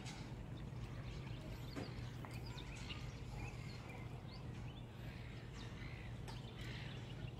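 Birds chirping with short, scattered calls over a steady low background hum.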